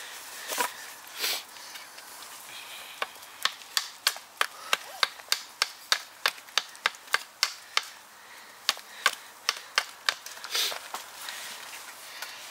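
A bushcraft knife's blade chopping into a length of wood, a run of sharp knocks about three a second starting about three seconds in, with a few more near the end.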